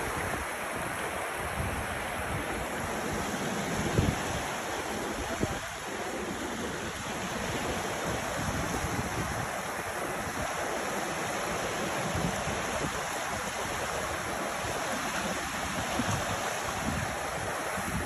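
A fast mountain river rushing steadily, with two brief low thumps about four and five and a half seconds in.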